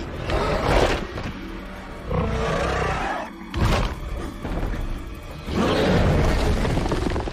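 Action-film soundtrack: dramatic score music mixed with dinosaur roars and crashing impacts. A sharp crash comes about three and a half seconds in, and a louder stretch of crashing starts just before six seconds.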